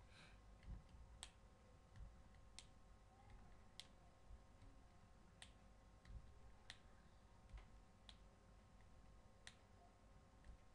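Near silence: room tone with faint, sharp clicks, about one every second and a quarter.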